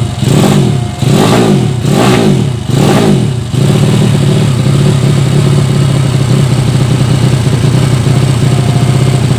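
A Yamaha Vega ZR four-stroke single bored out to 200cc with a Mio cylinder is blipped four times in quick succession, the revs falling away after each, then settles to a steady idle about three and a half seconds in. The carburettor is not yet set up and the engine runs lean.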